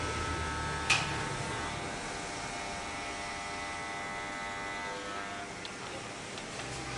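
Electric hair clippers buzzing steadily as they cut a man's hair, with a single sharp click about a second in.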